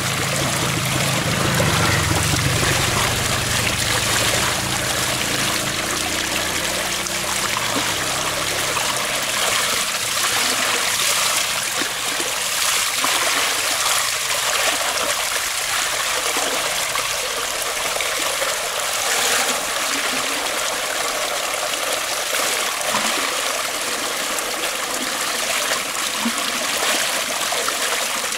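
Stream water pouring from a culvert pipe into a metal basin, splashing steadily as a cloth bag of goose feathers is rinsed and worked by hand in it.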